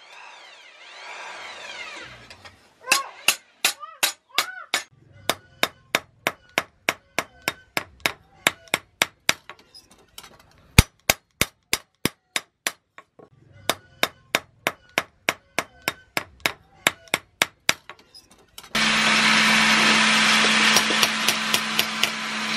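Hand hammer striking a knife blade on a small anvil during hand forging: ringing metal-on-metal blows about three a second, after a short pause at the start. Near the end a loud steady machine noise with a low hum starts up suddenly and runs under the blows.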